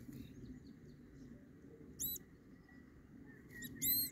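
Vole squeaking in distress as a cat toys with it: a short, high squeak about two seconds in, then a faint one and a louder, longer one near the end.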